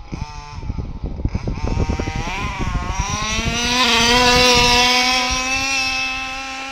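Zenoah G320 32cc two-stroke engine of a 1/5-scale KM Baja RC buggy, through a silenced side pipe: choppy throttle blips, then revving up in a rising whine and held at a steady high pitch. It is loudest about four seconds in as the buggy passes close, then fades as it moves away.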